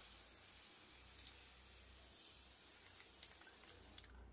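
Black spray paint hissing out in one steady spray; it starts suddenly and cuts off after about four seconds.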